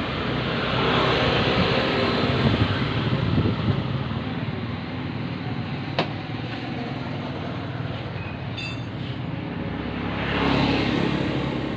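Motor vehicle engines and road noise, swelling as vehicles pass during the first few seconds and again near the end. There is one sharp click about halfway through and a brief high chirp a little later.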